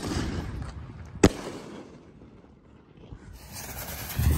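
A 60-gram-style consumer mortar shell (Winda Absolute Power) climbs with a hissing silver tail, then breaks with one sharp bang about a second in. Near the end the next tube spits a hissing shower of sparks and gives a low thump as it fires.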